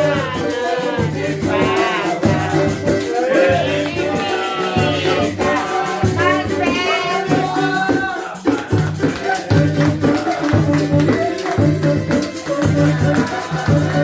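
Artcelsior Luxo cuíca, a friction drum, played in rising and falling squealing glides that stop about eight seconds in. Under it runs a samba-style rhythm of low pulses and a rattling shaker.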